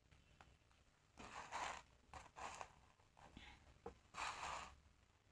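Near silence, broken by a few faint, soft swishes and small ticks of tarot cards being slid and set down on a cloth.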